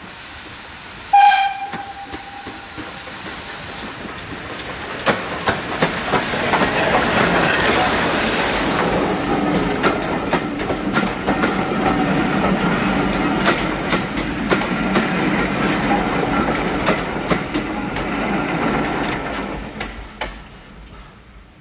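Steam tank locomotive gives one short whistle blast about a second in, then draws nearer and passes hauling its coaches. The train noise builds, with wheels clicking over the rail joints, stays loud while the carriages go by, and fades near the end.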